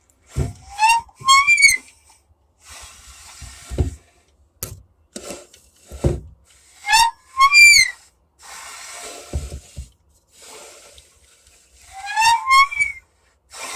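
An old broken-down household appliance squealing: three short, high whistling squeals that rise in pitch and then jump higher, with dull thumps and hissing or scraping in between.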